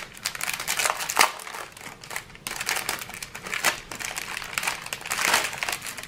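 Plastic packaging crinkling and rustling as hands handle a bag of diamond-painting drill packets, with irregular crackles throughout.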